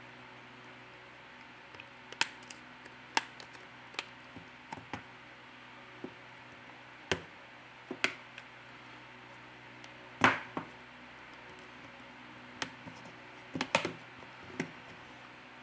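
Redmi Note 5A back cover being prised off with an opening pick and a plastic card worked along the seam: irregular sharp clicks and taps as the cover's clips let go and the tools knock against the case, the loudest about ten seconds in.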